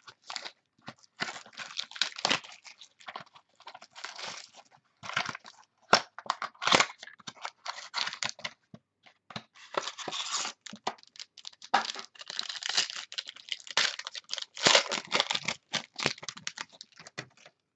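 A sealed mini box of trading cards being torn open by hand: irregular tearing, crinkling and rustling of the wrapper and cardboard, in bursts with short pauses.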